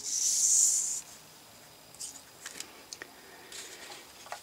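Handling of a paper greeting card: a one-second swish of card sliding at the start, then a few faint paper rustles and light taps.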